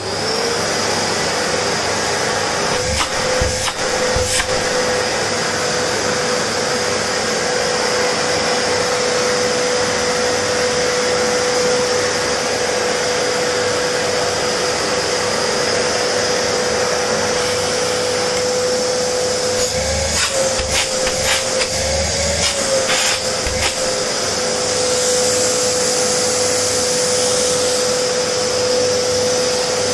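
Vacuum cleaner switched on, its motor whine rising briefly to a steady pitch, then running loudly with a steady rush of air over a floor. A few knocks and clicks come a few seconds in and again about two-thirds of the way through.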